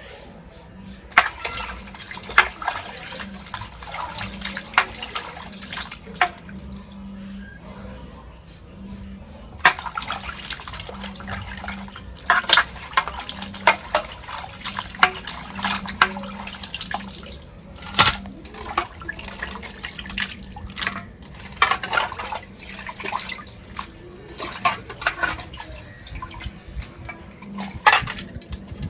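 Water running and splashing at a kitchen sink, with frequent clinks and knocks of things being handled and washed in it, over a faint low hum.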